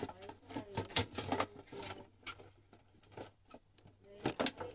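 Irregular clicks and knocks of the parts of an electric hot-water pot being handled and fitted together as its inner tank is turned into place on the base, with a cluster of sharper knocks near the end.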